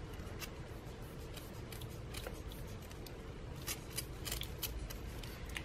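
Faint, irregular clicks and crackles of a small plastic squeeze bottle of glitter gel being squeezed and handled over the skin.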